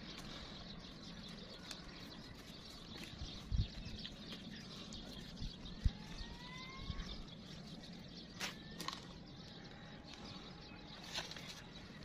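Quiet outdoor background noise with a bird calling a few times, including a rising whistled call about halfway through, and a few soft knocks and clicks.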